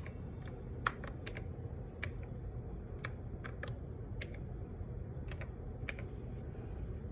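Keys of a freshly cleaned and reassembled mechanical keyboard being pressed one by one as it is tested, an irregular scatter of sharp clicks that stops about a second before the end. A steady low hum runs underneath.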